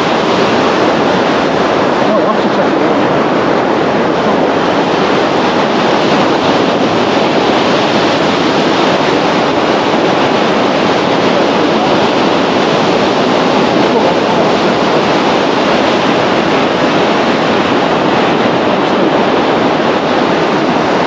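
Steady rush of surf breaking along a sandy beach, an even hiss with no pauses.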